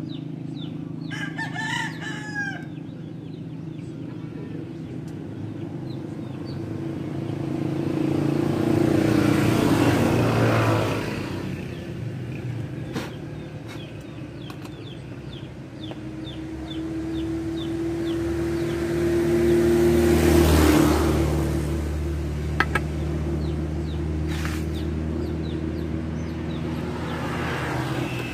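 A rooster crows once about a second in, with small birds chirping now and then. Later two vehicles pass, each swelling up and fading away over a few seconds, over a steady low hum.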